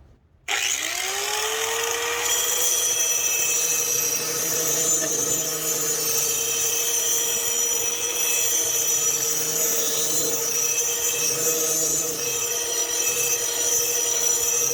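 Angle grinder with a cutting wheel switched on about half a second in, spinning up with a rising whine and then running steadily while grinding the edge of a steel lawnmower blade.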